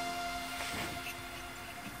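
Background music with sustained notes slowly fading out.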